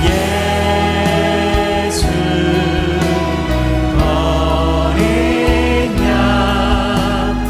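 A choir and congregation singing a slow worship song together, backed by a band with a deep sustained bass line.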